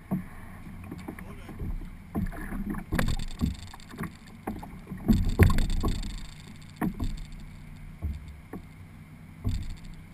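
Irregular hollow knocks and thumps on a dragon boat's hull, picked up by a camera mounted on it, some from a person stepping about in the boat, about ten in all with the loudest about halfway through. A steady low hum runs underneath.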